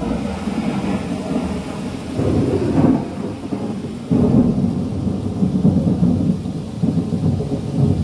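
Simulated thunderstorm played in a museum's storm-room exhibit: rumbling thunder over the hiss of rain, swelling louder about two seconds in and again about four seconds in.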